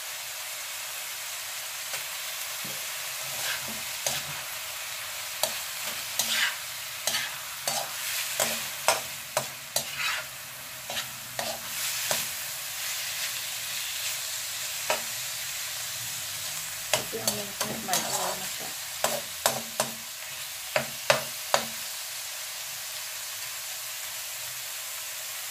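Minced beef and onion sizzling in a frying pan, with a slotted metal spatula scraping and clacking against the pan as the meat is stirred and turned. The stirring starts about two seconds in and stops a few seconds before the end, leaving steady sizzling.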